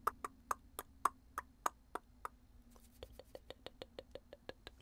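A quick series of sharp, dry clicks, about three a second. About three seconds in, a softer, faster run of clicks follows at about four a second.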